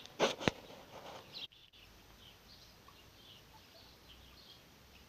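Small birds chirping now and then in the background, with a short rustle ending in a sharp click about half a second in.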